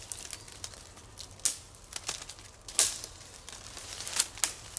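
Dry dead twigs being snapped off a tree by hand: about four sharp cracks, the last two close together near the end, with branches rustling in between.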